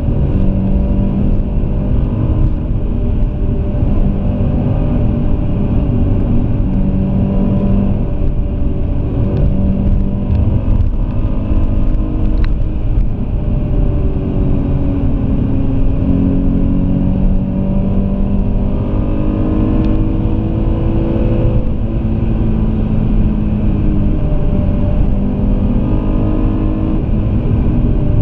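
Alfa Romeo 166's 3.2 V6 engine heard from inside the cabin on the move, its note climbing and dropping several times as the car accelerates and shifts gear, over a steady rumble of road noise.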